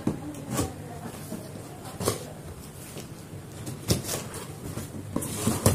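Cardboard printer box being handled and its lid flaps opened: a series of knocks, scrapes and rustles of cardboard, the loudest knock near the end.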